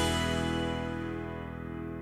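Background music: a held chord rings on and slowly dies away.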